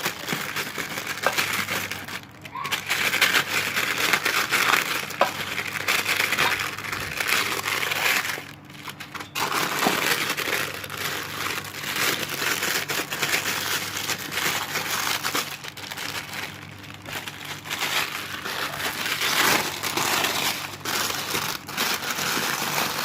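Packaging around a new motorcycle exhaust being torn open and crumpled by hand: continuous crinkling and rustling with many small crackles, pausing briefly twice.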